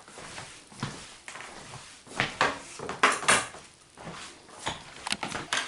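Plate and cutlery being handled: a series of short clinks and scrapes, loudest about two and three seconds in.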